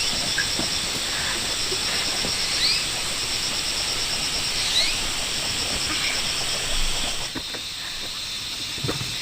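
A steady high insect drone with a bird's short rising call repeated about every two seconds. The drone cuts off about seven seconds in, and a few light knocks follow near the end.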